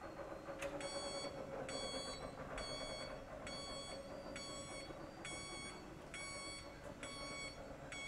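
Electronic warning beeper sounding about nine times, roughly one beep a second, each a flat multi-tone beep that stops sharply, over a steady hum.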